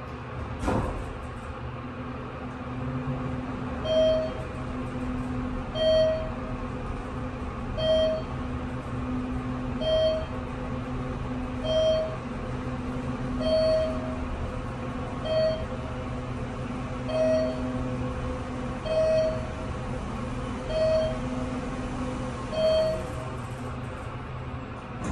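Thyssenkrupp machine-room-less traction elevator car travelling, with a steady hum. A knock comes about a second in, then a short beep repeats about every two seconds, eleven times.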